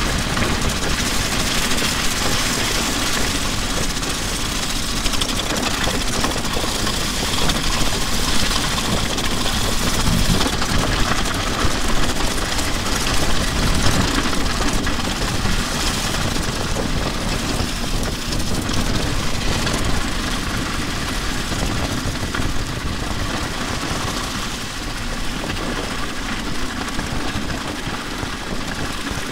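Drum shells and an electric guitar dragged over wet asphalt, making a continuous dense grinding and rattling noise. The guitar's scraping comes through its own line signal and the drums through an overhead microphone.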